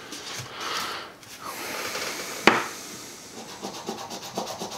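Coin scraping the coating off a scratch-off lottery ticket in quick, short strokes, with one sharp click about two and a half seconds in.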